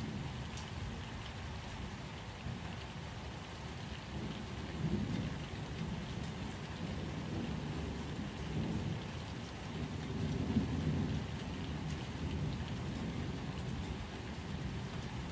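Steady rain with low rumbles of thunder that swell about five seconds in and again around ten seconds in.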